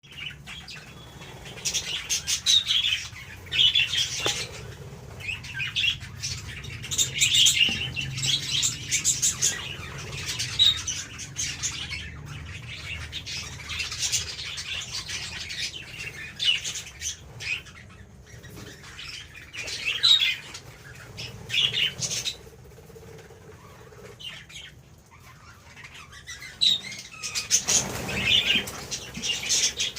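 A flock of budgerigars chattering, with many overlapping high chirps and squawks in busy bursts. They thin out for a few seconds before picking up again near the end.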